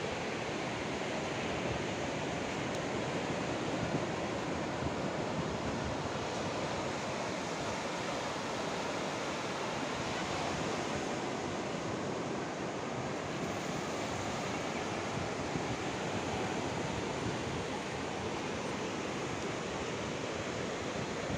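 Sea surf washing onto a sandy beach: a steady, even rushing noise, with some wind.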